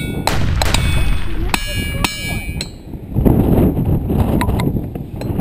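A hammer strikes ringing rocks, boulders that ring like a bell when hit. Several strikes in the first two and a half seconds each leave a high, bell-like ringing tone that lingers briefly. After that come low rumbling noise and a few faint clicks.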